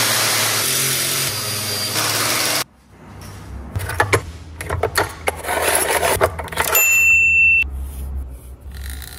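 A power tool running steadily, cut off abruptly after about two and a half seconds. Irregular knocks and scrapes follow, like wood and tools being handled, with a short high beep near the end.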